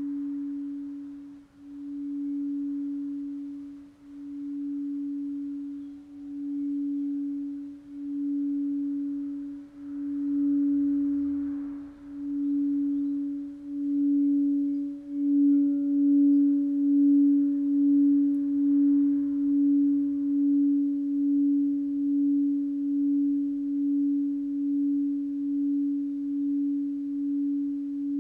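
An 8-inch Alchemy crystal singing bowl tuned to C# is played with a wand circled around its rim, giving one steady low hum with a faint overtone an octave above. The hum swells and dips about every two seconds at first, grows louder about halfway through, then keeps ringing with a faster wobble about once a second.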